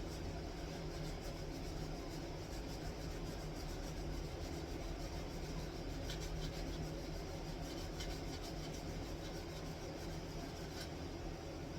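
A steady low hum, with faint scratchy rubbing of sandpaper on wood that grows a little stronger partway through.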